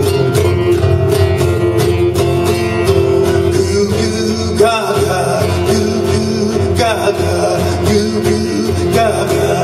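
Acoustic guitar strummed in a steady rhythm, an instrumental passage of a solo acoustic song.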